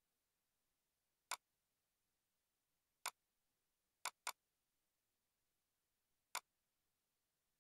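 Near silence broken by five sharp clicks at uneven intervals, two of them in quick succession about four seconds in.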